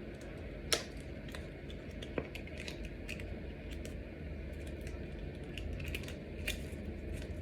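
Small clicks and rustles of hands handling a trading card and its packaging, with two sharper clicks in the first few seconds.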